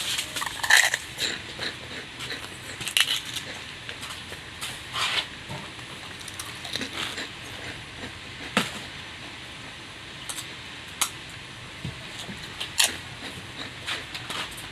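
Close-up eating sounds: irregular chewing, mouth smacking and sharp crunching clicks from a person eating rice and chicken.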